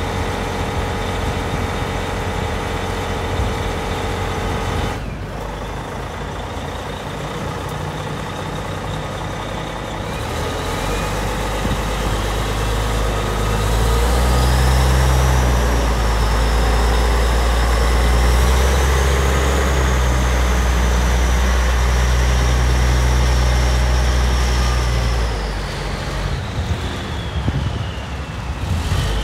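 Caterpillar 772 rigid dump truck's diesel engine running steadily, then building up and working hard for about ten seconds as the truck pulls away, with a high whine rising and falling over it. It eases off near the end as the truck moves off.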